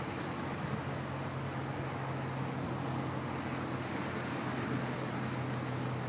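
Steady wash of surf and wind on the shore, with a low steady hum underneath.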